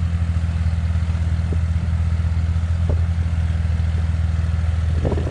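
Farm tractor's diesel engine running steadily with a fast, even throb as it drags a rear leveling blade through loose soil.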